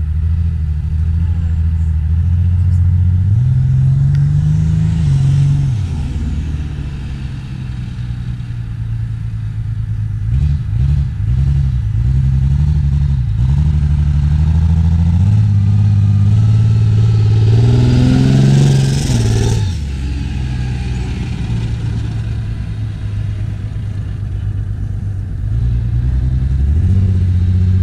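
Compound-turbo Cummins diesel mud truck running hard, its engine note climbing and dropping several times as it accelerates and lets off. About two-thirds of the way in it climbs to its loudest with a rising rush as it passes close, then drops away.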